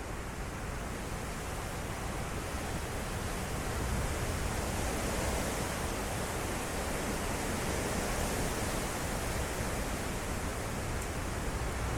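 Strong derecho wind gusts blowing as a steady rushing noise, swelling a little about four seconds in.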